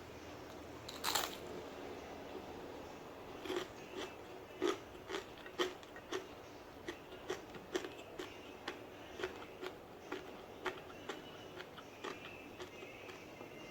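Close-up chewing of crunchy fried food: crisp crunches come about twice a second. There is one sharper crack about a second in.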